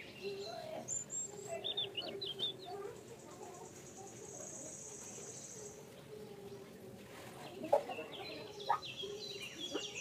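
Bird calls in the background: short high chirps and a steady high trill partway through. Two light taps come late on.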